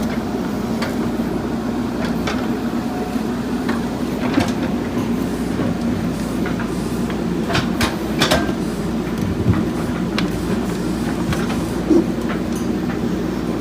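JCB backhoe loader's diesel engine running steadily under work, with scattered sharp metallic clanks from the digging arm and bucket, a cluster of them about eight seconds in.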